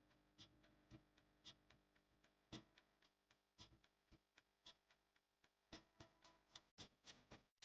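Faint, irregular clicking, two or three sharp clicks a second.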